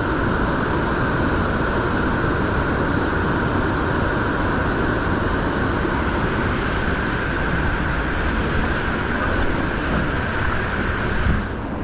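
Steady rushing of fast-flowing creek water, a dense even roar with no single events in it, changing abruptly to a duller sound near the end.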